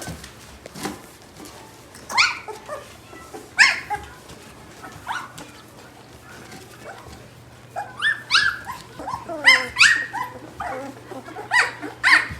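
Young Gerberian Shepsky puppies crying and yelping in short, high-pitched squeals that drop in pitch. The calls come in scattered ones and twos, then crowd together about eight seconds in.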